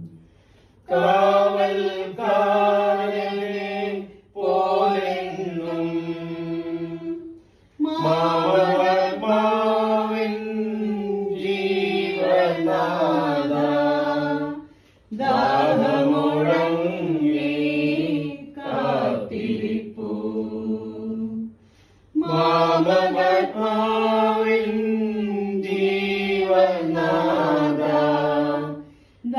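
A small group of voices sings a slow hymn for the departed in phrases of several seconds, with brief pauses between them and no instruments heard.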